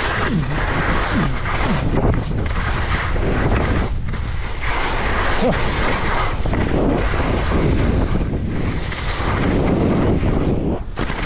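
Wind rushing over a skier's camera microphone during a downhill run, mixed with the skis scraping over soft spring snow.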